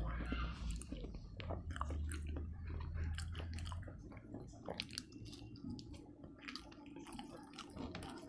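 A person chewing a mouthful of rice with a watery taro curry, with short, irregular wet mouth clicks and smacks.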